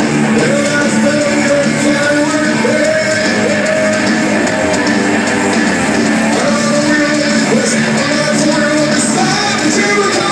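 Live rock band playing loud: electric guitars carrying a held, bending melody line over bass and drums. It is heard from amid the crowd through a phone's microphone.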